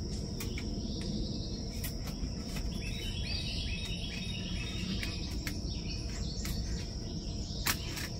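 Steady high-pitched chorus of insects, with a bird giving a quick run of repeated chirps about three to five seconds in. A few light clicks come from the wire cage trap being handled.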